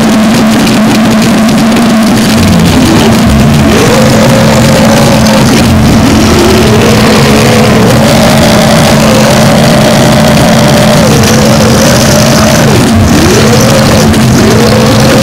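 Harsh noise (gorenoise): a loud, constant wall of distorted noise over a steady low hum, with wavering tones sweeping up and down through it.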